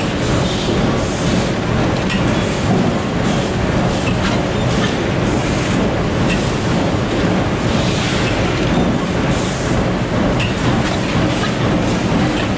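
Press forming aluminium clip-in ceiling panels: a loud, steady machine din with irregular clanks about once a second as panels are worked in the die.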